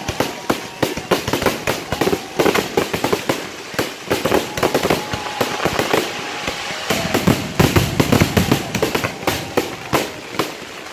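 Fireworks going off close by: a rapid, continuous string of bangs and crackles, growing denser and louder with deeper booms about seven seconds in.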